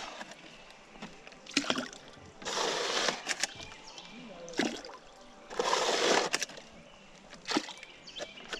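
Water swishing around a canoe in three bursts about three seconds apart, with sharp knocks against the hull between them.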